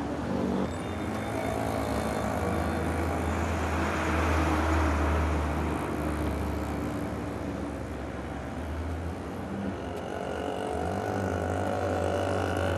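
Motor traffic passing on a highway: a steady low engine hum with a rushing haze of tyre noise, swelling as vehicles go by about four seconds in and again near the end.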